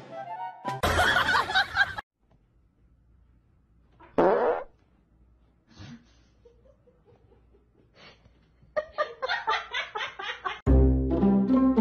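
A short fart about four seconds in, then a person laughing in quick bursts, cut off by loud music near the end. A loud rushing burst of noise comes about a second in.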